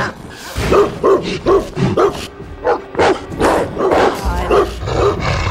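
A large dog barking aggressively, a quick run of short barks at about three a second that starts about half a second in.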